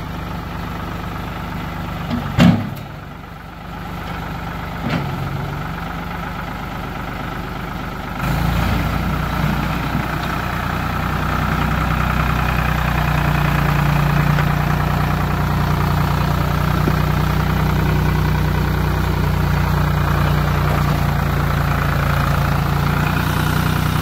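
Ford 3000 tractor's three-cylinder engine running, with a sharp knock about two seconds in. About eight seconds in the engine picks up speed and then runs louder and steady as the front loader pushes into the snow.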